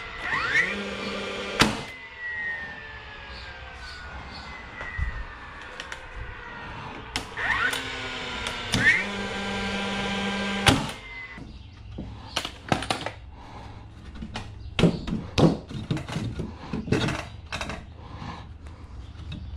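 DeWalt 20V cordless framing nailer: its motor spins up with a rising whine and then drives a nail into pressure-treated lumber with a sharp crack, twice, about nine seconds apart. After the first shot the whine winds down slowly. In the second half there is a run of separate knocks, wooden boards being handled and set against each other.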